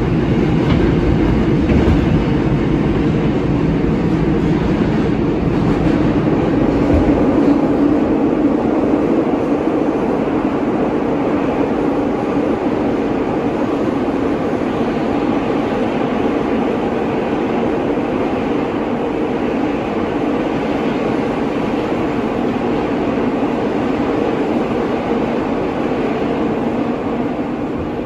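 New York City Subway R188 car running between stations, heard from inside the car: a loud, steady running noise of wheels on rail and the car's motors, easing slightly near the end.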